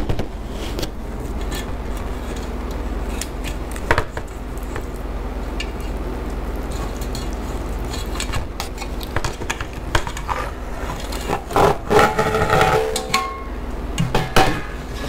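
Knocks and scrapes of a metal baking pan being handled, with a baked pizza lifted and pulled apart from it, over a steady low hum. The busiest handling, with some brief ringing, comes about two-thirds of the way in.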